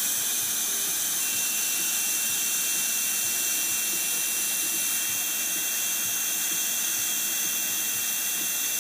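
Dental suction tip at the mouth hissing steadily as it draws air from the laser site, with a faint steady high tone coming in about a second in.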